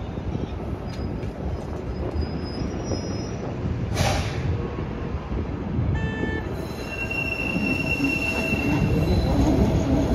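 PATH train rolling slowly through curved yard tracks and switches: a low rumble of the wheels on the rails, with thin, high wheel squeals. There is a sharp clank about four seconds in, and a steady high squeal from about seven to nine seconds in.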